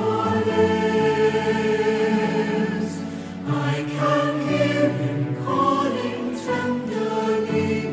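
Slow background song with singing voices holding long notes over sustained chords.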